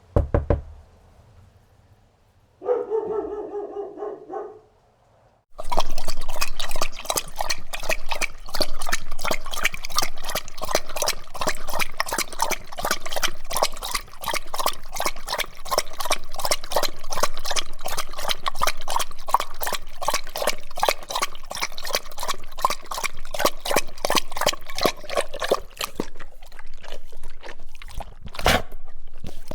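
A dog lapping water close up: a fast, steady run of wet laps, about four a second, that stops near the end. Before it there is a single drawn-out dog bark.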